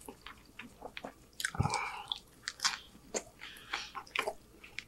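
Close-miked chewing of a mouthful of chicken street taco: a run of short, wet mouth clicks and smacks, with a louder, fuller mouthful about one and a half seconds in.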